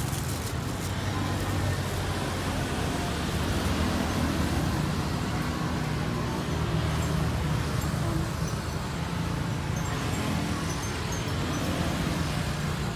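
Steady road traffic noise: motor vehicle engines running with a continuous low hum.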